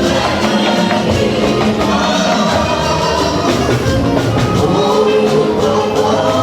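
Live gospel music: a group of voices singing over drums and other instruments with a steady beat.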